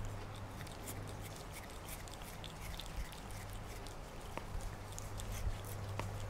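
A domestic cat chewing and licking a piece of watermelon held in fingers: many small, irregular wet clicks, over a steady low hum.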